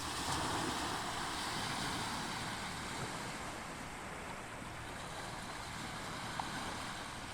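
Ocean surf: waves washing in as a steady rush of noise, a little louder in the first two seconds, with one small click about six seconds in.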